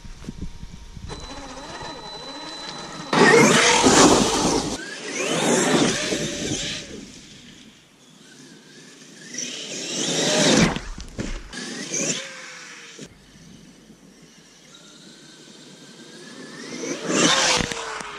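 Traxxas X-Maxx electric RC monster truck driven in repeated bursts of throttle over wet, muddy ground: its brushless motor whines up and down in pitch with each run, over a rush of tyre and drivetrain noise. About five runs, the loudest about three to five seconds in.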